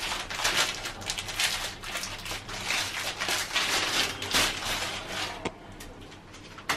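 Plastic packaging crinkling and rustling as it is handled and opened to take out a flexible connection pipe: a dense run of irregular crackles that thins out about five seconds in.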